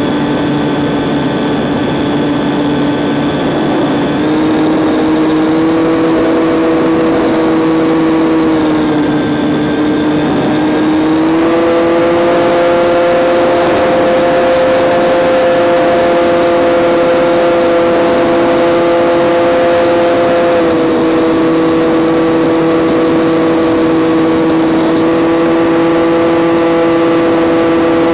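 Quadcopter drone's propellers and motors whining steadily as a loud hum of a few close tones. The pitch steps up and down several times, rising about four seconds in and again about eleven seconds in, and dropping a little around twenty seconds in.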